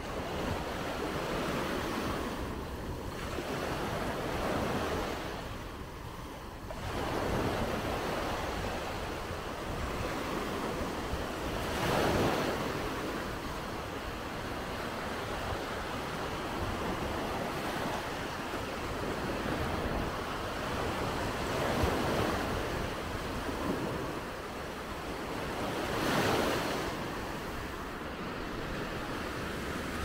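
Sea waves breaking and washing up a beach, swelling louder every few seconds, with some wind on the microphone.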